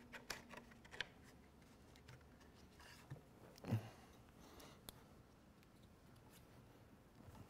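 Faint clicks and handling noises as a plastic filament-cleaner clip is pushed onto a 3D printer's aluminium frame. There are a few light ticks and one slightly louder knock near the middle.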